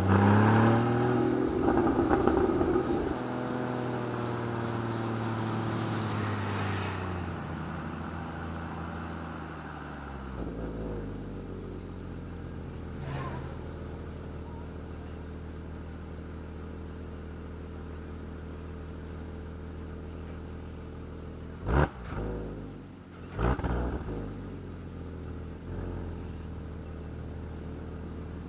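Porsche 981 Boxster's flat-six engine revving up in the first few seconds, then easing off and running steadily at lower revs. Two brief thumps about three-quarters of the way through.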